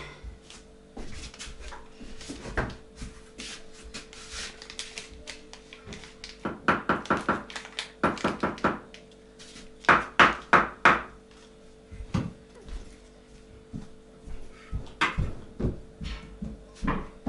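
Hammer striking bricks on a brick stove being laid, in quick runs of several taps with single knocks between; the loudest run is four strikes about ten seconds in.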